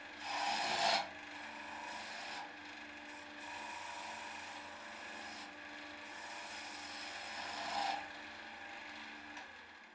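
Wood lathe running while a flat chisel cuts the spinning wood. A steady motor hum sits under scraping, shaving noise that swells louder in bursts, strongest about a second in and again near the end.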